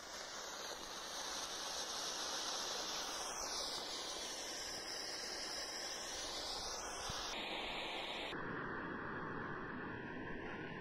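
Steady hiss of a Holi colour smoke stick burning and spewing smoke.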